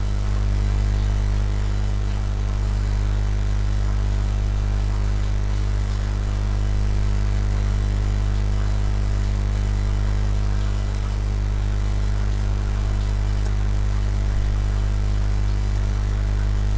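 Steady low hum with a stack of evenly spaced overtones, unchanging in level and pitch.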